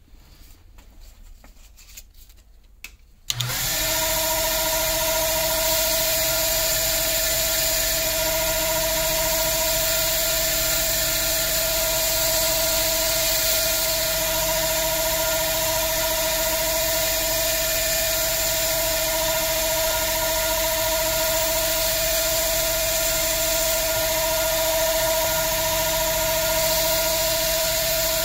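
A few light handling clicks, then about three seconds in a small cue lathe motor switches on and runs steadily with a constant whine and a hiss, while sandpaper is held against the spinning G-10 ferrule.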